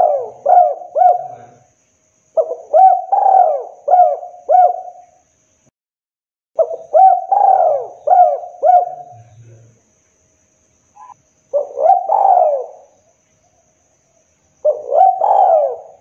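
Spotted dove cooing: phrases of several quick, hoarse coos, repeated about every four seconds.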